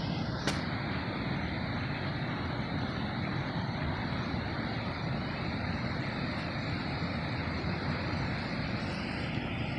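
Steady low outdoor rumble, with a single sharp click about half a second in.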